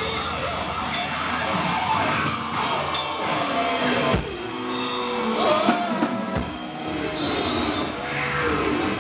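A live rock band playing loud, with electric guitar over a drum kit. Sharp drum hits land about four seconds in and again a couple of seconds later, and some notes slide up and down in pitch.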